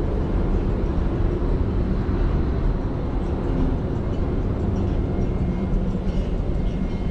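Wind buffeting the microphone on an open ship's deck: a steady, uneven low rumble with no distinct events.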